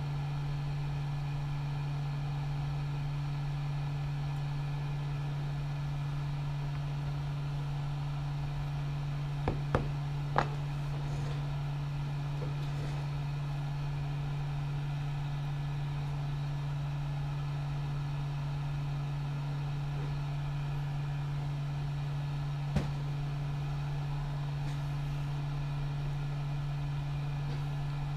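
Hot air gun's blower running with a steady low hum while a chip is reflowed onto a laptop logic board. There are a few short sharp clicks about ten seconds in and one more later.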